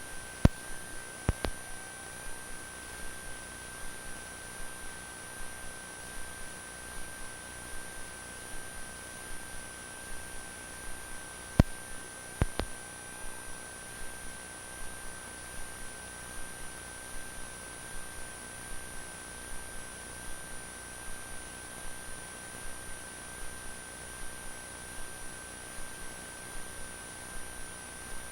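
A steady, single high-pitched electronic tone with faint line hiss on an open telephone line feeding an emergency-alert broadcast, broken by sharp clicks twice near the start and twice about halfway through.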